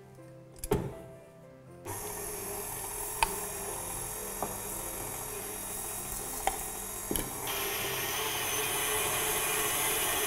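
KitchenAid Artisan stand mixer running, its beater creaming butter and sugar in the steel bowl. It starts about two seconds in and grows louder near the end, with a few sharp clicks along the way.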